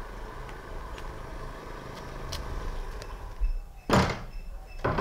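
Steady outdoor background hiss, then a wooden door being handled, with a loud thump about four seconds in and more knocks near the end.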